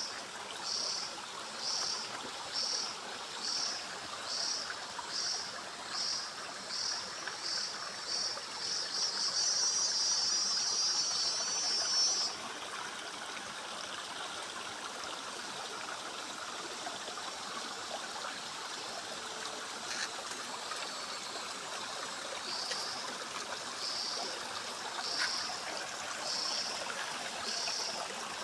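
A creek running steadily after heavy rain, with a cicada calling in high, regular pulses, about three every two seconds, that speed up into a continuous buzz and stop abruptly. Past the middle the cicada starts pulsing again.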